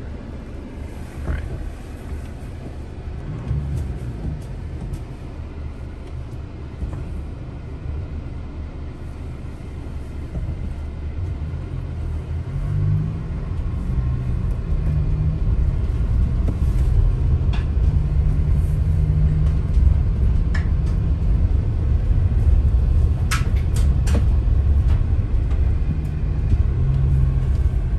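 Low rumble of a 2023 Mercedes-Benz Sprinter 4MATIC all-wheel-drive van's engine and studded snow tires, heard from the cab while climbing a steep icy gravel grade. About halfway through it gets louder, with a steady engine note as the van works up the hill. A few sharp ticks come near the end.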